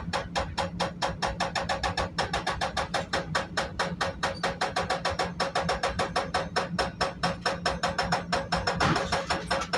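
Hydraulic breaker hammer on a CAT 330 excavator pounding concrete in rapid, evenly spaced blows, several a second, over the steady hum of the excavator's engine.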